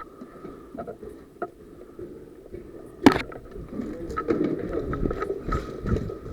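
Rustling and handling noise close to the microphone, with one sharp crack about three seconds in.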